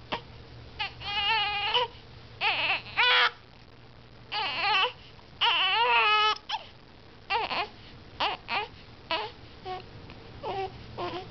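A baby girl with the hiccups whimpering and crying in short, high-pitched bouts, each about a second or less, some beginning with a sharp hiccup. The crying is her frustrated reaction to the hiccups.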